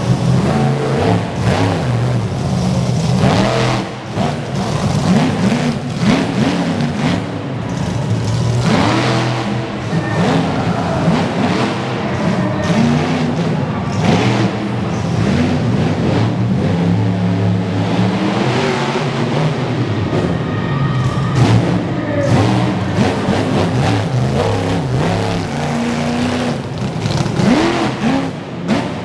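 Monster truck engine revving hard during a freestyle run, its pitch rising and falling again and again, with music mixed underneath.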